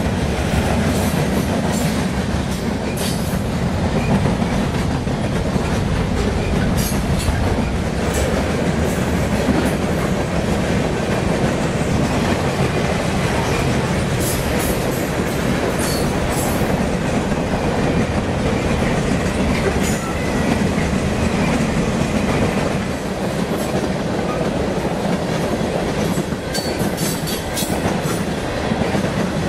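Mixed freight train of hoppers, boxcars and tank cars rolling past at speed, its steel wheels rumbling and clattering steadily over the rails, with scattered sharp clicks.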